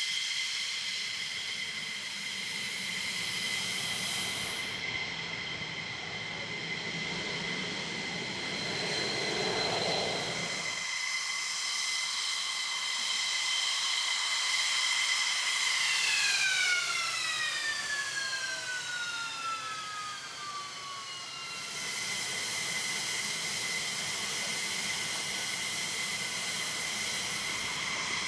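F-15E Strike Eagle's Pratt & Whitney F100 turbofan engines running at idle, a steady high whine made of several tones. About halfway through, a set of those tones slides down in pitch for several seconds as an engine spools down, while a steady whine carries on.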